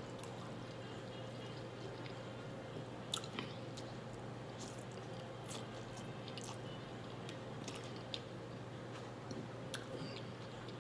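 A person chewing food close to the microphone, with scattered wet mouth clicks and smacks, over a steady low hum.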